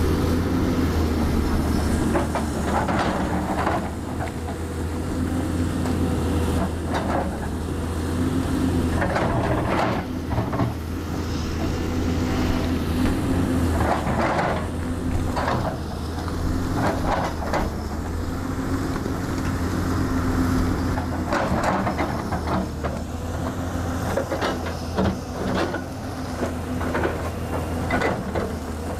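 Caterpillar 320C L excavator's diesel engine running steadily under load with a constant hydraulic whine. The bucket teeth scrape and grind against the rock wall in repeated short bursts every few seconds.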